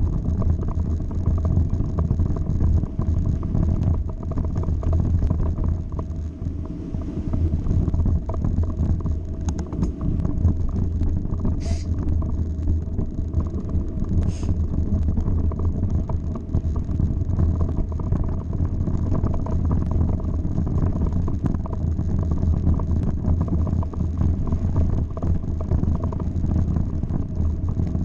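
Mountain bike ridden over a rough gravel and dirt track, heard through a camera mounted on the bike: a steady, loud rumble and rattle of tyres and frame on the stony ground. Two short high-pitched sounds come through near the middle.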